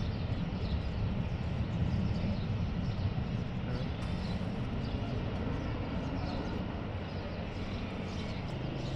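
Jet airliner's engines on a departure, a steady low rumble that slowly fades.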